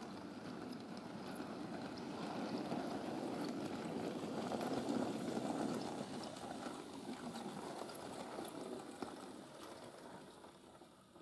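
Model railway locomotive and its goods wagons rolling along the track: a steady rumble of motor and wheels with faint ticking. It grows louder as the train passes close by about halfway through, then fades as it draws away.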